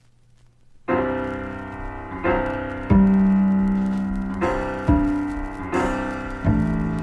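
Solo jazz piano music that comes in about a second in after near silence, with chords struck roughly once a second and left ringing.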